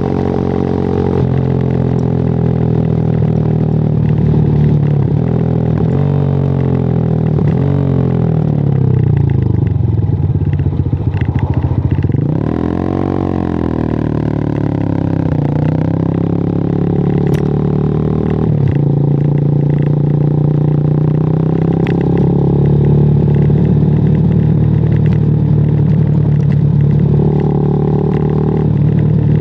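WMOTO Hawk 200i motorcycle engine running while riding: it holds steady, then the pitch drops and wavers as the bike slows about a third of the way in, rises sharply as it is revved up again near the middle, and settles into a steady cruise for the rest.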